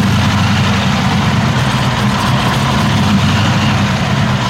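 A muscle car's V8 engine idling steadily.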